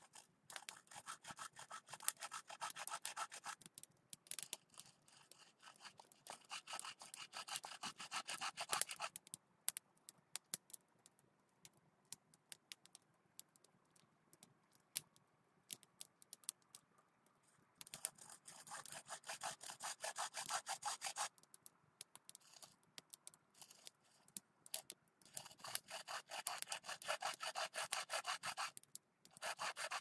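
Hand saw cutting through wood in four bouts of fast, even strokes, with pauses between the bouts.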